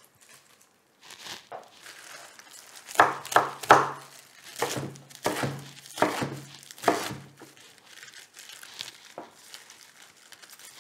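Chef's knife chopping fresh spinach leaves on a wooden cutting board: irregular sharp chops, each with a low knock from the board. Three come in quick succession about three seconds in, then the strokes slow and space out.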